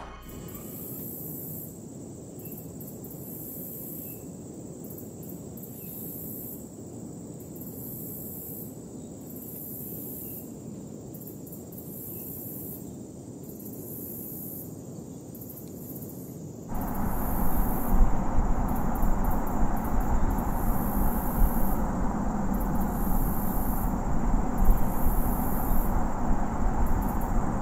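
Night ambience of insects chirring in on-and-off pulses over a soft, even hiss. About two-thirds of the way in, a louder low steady hum with noise starts abruptly and holds.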